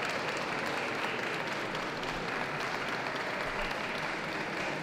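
Audience applauding steadily, a continuous patter of many hands clapping.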